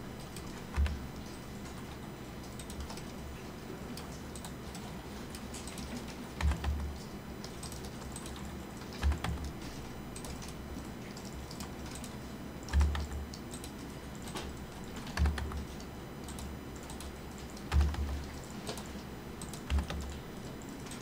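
Computer keyboard keystrokes at an irregular pace, with about seven heavier key presses knocking through the desk, over a low steady background hum.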